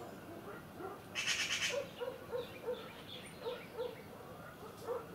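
Bird calls: a brief rasping burst about a second in, then a run of short, low, evenly repeated calls, about three a second.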